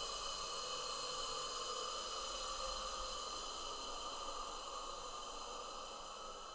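Designed monster sound effect: a long, steady breathy hiss with faint ringing tones, slowly fading out.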